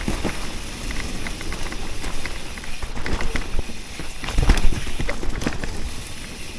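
Electric mountain bike riding down a leaf-covered forest trail: tyres rolling through fallen leaves, with the bike rattling and many irregular clicks and knocks over bumps. A heavy thump comes about four and a half seconds in as the bike drops over a bump.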